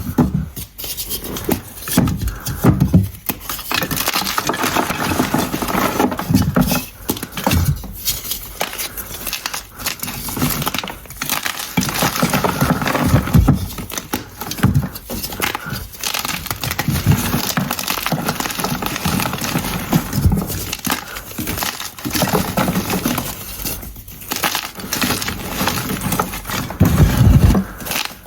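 Blocks of gym chalk being crushed and crumbled, giving a dense, uneven run of crisp crackles and snaps, with heavier crunches now and then.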